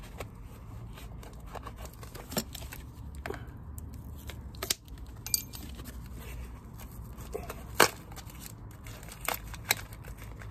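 Paper and card packaging of new brake pads being handled and torn open: rustling and tearing with a few short sharp clicks, the loudest about eight seconds in.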